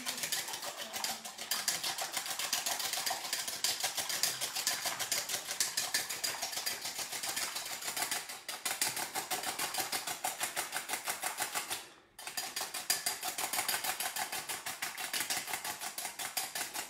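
Fork beating an egg in a ceramic bowl: rapid, regular clicking of the metal tines against the bowl, with a brief pause about twelve seconds in.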